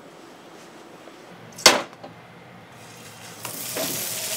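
A single sharp knock about a second and a half in, then a hamburger steak patty starting to sizzle in hot oil in a frying pan, growing louder near the end.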